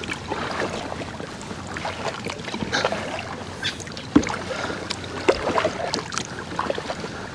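Double-bladed kayak paddle dipping into calm water, with irregular small splashes and drips.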